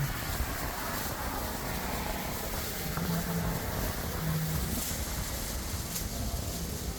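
Jet airliner's engines running, a steady rumble with hiss and a low hum that comes and goes.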